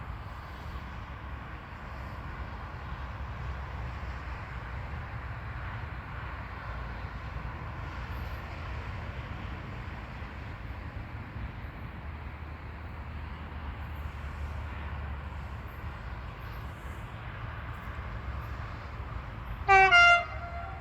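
Train running with a steady low rumble, then one short, loud horn blast near the end that trails off into a fainter, lower note.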